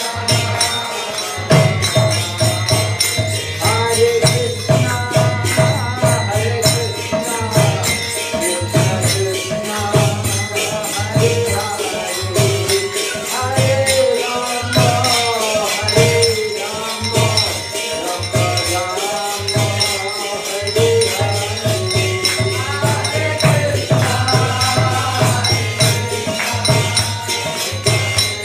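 Kirtan: a man singing a devotional mantra, with small brass hand cymbals (karatalas) striking in a fast, steady rhythm over a regular low beat.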